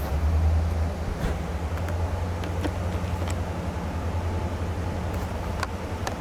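An engine running with a steady low hum, with a few faint clicks over it.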